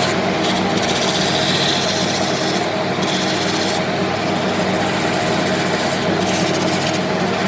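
Wood lathe motor running steadily while a tool or abrasive rubs against the spinning mahogany workpiece in several short passes, each adding a hiss.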